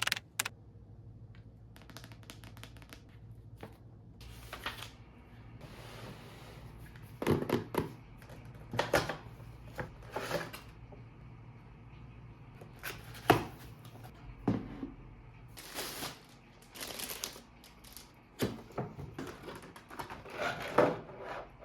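Packaging being handled and opened while unboxing figures: irregular clicks, taps and short rustles, with one sharp knock standing out about thirteen seconds in.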